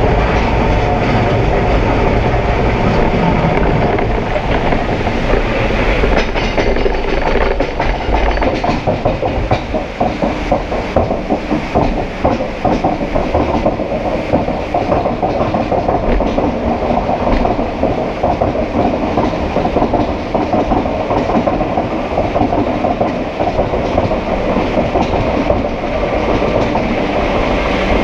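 Vekoma mine train roller coaster car rolling on its steel track with a heavy low rumble. After about ten seconds it changes to the fast, even clatter of the chain lift hauling the train up the lift hill.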